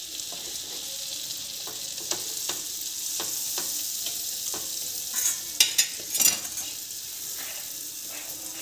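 Butter with garlic sizzling in a flat frying pan while a wooden spatula spreads it, scraping and tapping on the pan; the strokes are loudest about five to six seconds in.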